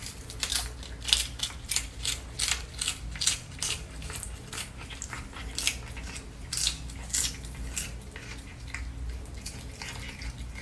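A cat biting and chewing a crisp lettuce leaf held in a hand: a run of short crunches, about two a second.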